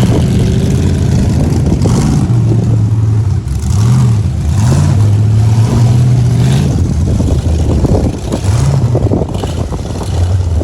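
Full-size rock crawler's engine running loud and revving in short bursts as it climbs a rock face, the pitch rising and falling a couple of times.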